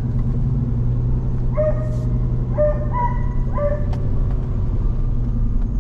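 A dog barks three times, about a second apart, over the steady low rumble of the pickup truck's engine and tyres, heard from inside the cab.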